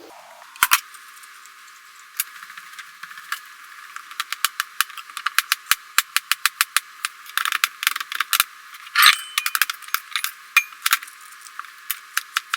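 Knife chopping vegetables on a cutting board: sharp, irregular strikes, a few at first, then quick runs of chops from about four seconds in.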